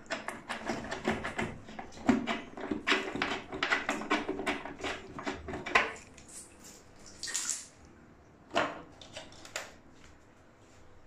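Rapid clicking and rattling of hands working an instant water heater: its braided metal shower hose clinking and its plastic front cover being unclipped and lifted off. There is a short hiss about seven seconds in and a few more single clicks after it.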